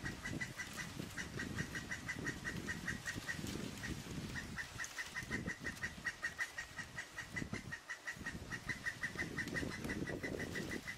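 Male pileated woodpecker giving long, rapid series of loud 'kuk' calls, about six notes a second, pausing briefly about a third of the way in; a territorial call driving the female from the feeder.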